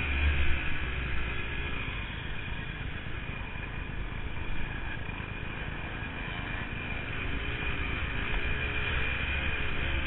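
Honda CR250 two-stroke dirt bike engine running under a rider on a rough trail, its pitch rising and falling with the throttle, mixed with a heavy wind rumble on the camera microphone.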